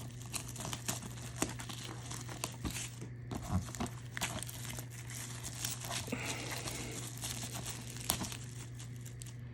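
Plastic packaging on a DVD box set crinkling and tearing as it is cut and pulled off, in many small irregular rustles and clicks. A steady low hum runs underneath.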